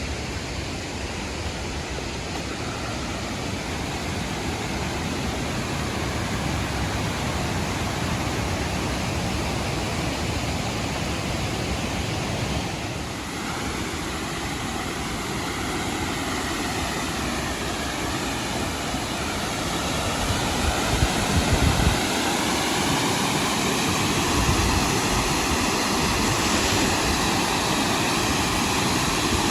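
Large waterfall with a steady, even rush of falling water.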